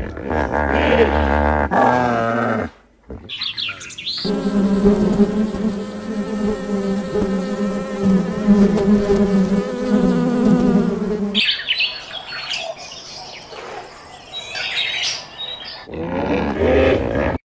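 A run of separate animal sounds, the longest a steady buzzing insect lasting about seven seconds in the middle. It is preceded by a short call with wavering pitch and followed by scattered short chirps.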